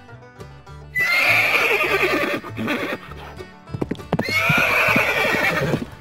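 A horse neighing twice: once about a second in and again about four seconds in, each call lasting about a second and a half. A few sharp hoof knocks come between the calls, over background music with a repeating bass line.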